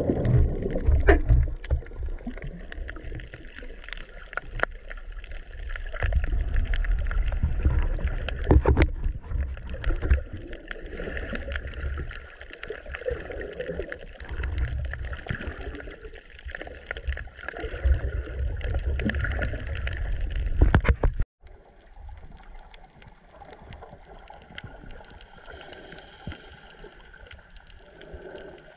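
Muffled water noise picked up by a camera held underwater: sloshing and bubbling with an uneven low rumble and scattered sharp knocks. About three-quarters of the way through it cuts off sharply and gives way to a fainter, steadier underwater hiss.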